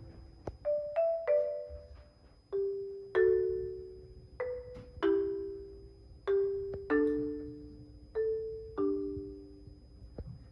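Background music: a slow, gentle melody of struck notes, each ringing and fading, often sounding in pairs about once or twice a second.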